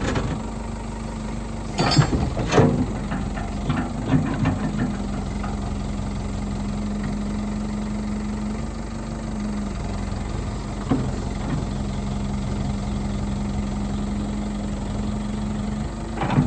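Caterpillar 420D backhoe loader's four-cylinder diesel engine idling steadily. A few short knocks sound over it about two to five seconds in, and another about eleven seconds in.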